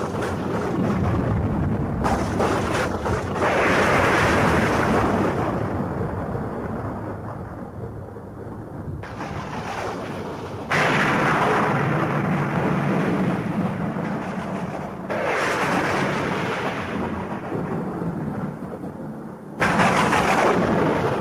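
Recorded thunderstorm played through a theatre's sound system: rain with thunder, which several times breaks in suddenly and then rumbles away slowly.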